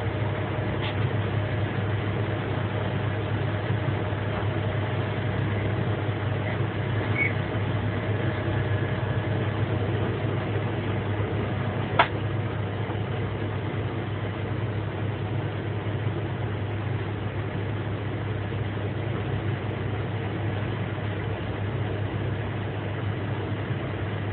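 Steady low hum and running noise of a Swiss SBB electric train, heard from the driver's cab. A single sharp click comes about halfway through.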